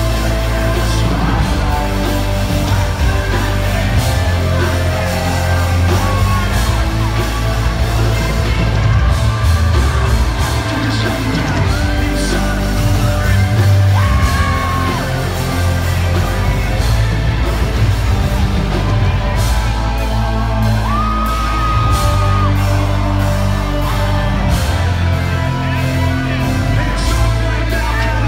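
Live rock band playing loud, with heavy bass and drums and a few long, bending electric guitar notes, and yelling over the music. Heard from within the crowd in a large concert hall.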